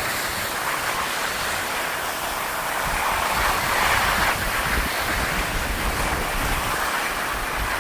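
Skis sliding and scraping over snow with a steady hiss that swells in the middle, while wind buffets the microphone with a low rumble.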